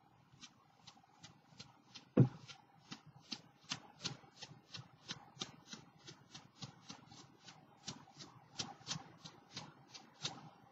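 Paintbrush loaded with black paint being tapped over and over to flick splatters onto paper: a steady run of light taps about three a second, with one louder knock about two seconds in.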